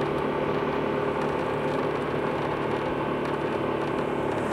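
Motorcycle engine running at a steady pitch during a ride, with even wind and road noise, picked up by a clip-on wireless lavalier mic fitted with a wind muff.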